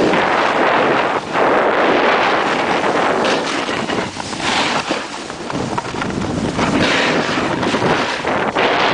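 Wind rushing over a handheld camera's microphone while skiing downhill, a loud uneven noise that surges and dips.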